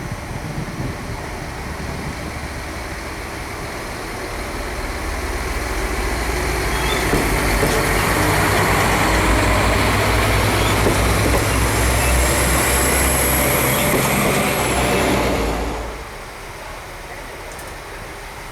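SA134 diesel railbus (diesel multiple unit) running, its engine rumble growing louder over several seconds and holding, with a faint high whine near the end of that stretch. About 16 s in the sound cuts abruptly to a quieter, steady engine running.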